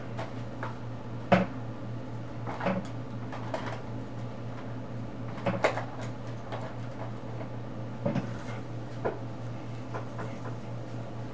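Colouring pens or pencils being handled while colouring: scattered short clicks and knocks, about five sharper ones, the loudest about a second in, over a steady low hum.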